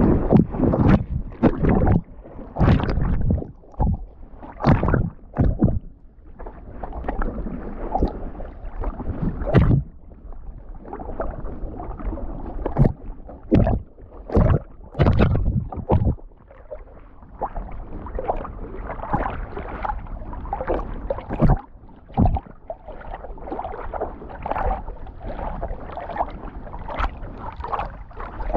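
River water splashing and sloshing close to a dog-worn GoPro. It comes in irregular loud splashes through roughly the first half, then settles into a steadier, quieter rush of water.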